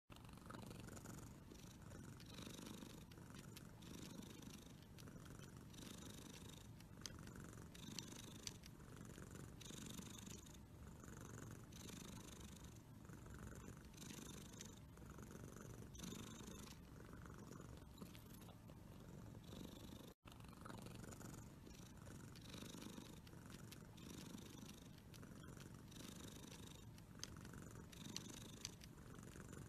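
Tabby cat purring softly and steadily while a roller massager is worked over its cheeks, a sign of contentment; the purr swells and fades with each breath. One momentary break about two-thirds through.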